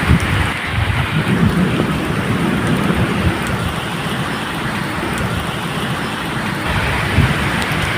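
Steady medium rain falling, with low thunder rumbling underneath that swells near the start and again near the end.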